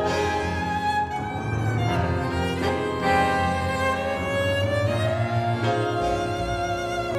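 Tango music led by violins over bowed strings, playing long held notes that move from one pitch to the next.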